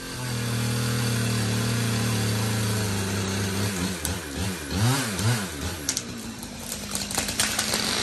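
A chainsaw runs steadily at high speed through a felling cut, then revs up and down several times about four seconds in. Near the end come cracks and rushing noise as the tree begins to tip over.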